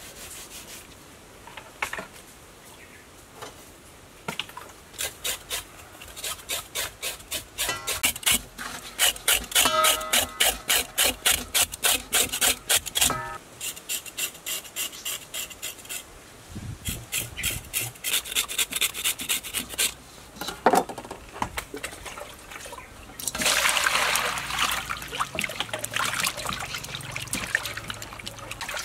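Hands scrubbing a raw pig's leg with salt in a stainless steel bowl: rhythmic rubbing strokes, about two to three a second. Near the end comes a longer rush of water sloshing in the bowl.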